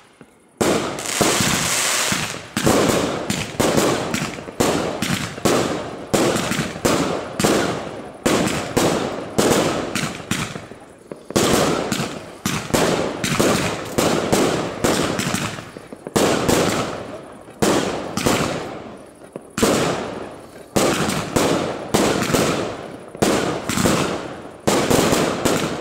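Aerial fireworks bursting in quick succession, about one to two bangs a second, each bang trailing off before the next.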